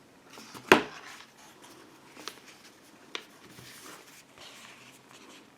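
Handling noises from the unboxing: a sharp click or knock less than a second in, then two lighter clicks, with faint rustling between.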